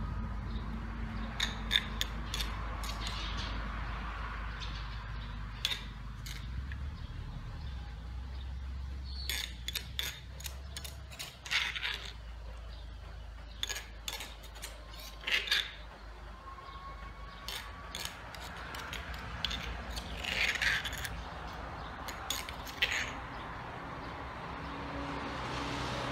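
A metal spoon scraping and clinking against a mortar and a ceramic plate as mango salad is scooped out and served, in irregular sharp clicks and short scrapes. A steady low rumble runs underneath.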